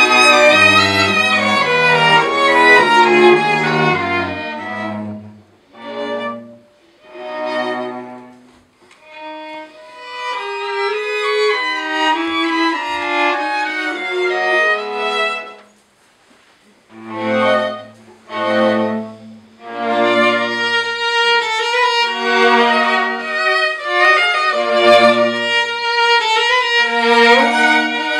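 String quartet playing: violins in the melody over low cello notes. The phrases break off into several short pauses in the middle, and fuller, denser playing resumes from about twenty seconds in.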